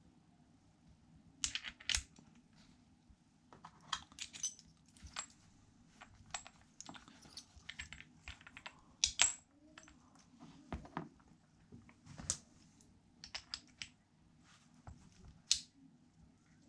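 Steel gearbox gears and shafts of a 125 pit bike being handled: irregular metal clicks and clinks as a gear is fitted onto its shaft and the two gear shafts are meshed together by hand.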